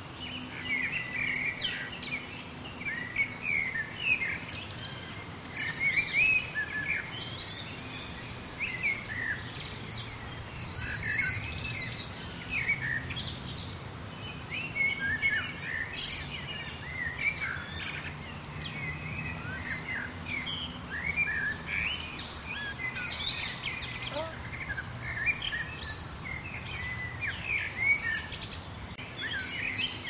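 A chorus of small birds chirping and twittering, many short quick calls overlapping, with a rapid high trill twice, about 8 and 21 seconds in. A faint low hum sits underneath.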